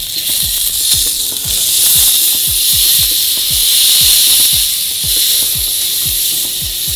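Thick ribeye steak sizzling as it sears on hot grill grates over charcoal while it is turned a quarter turn. Background music with a steady bass beat plays underneath.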